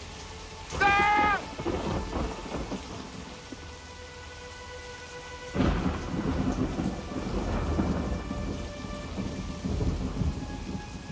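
Steady rain with thunder: a sharp thunderclap about five and a half seconds in, rumbling on for several seconds afterwards. A brief, loud, high-pitched cry sounds about a second in.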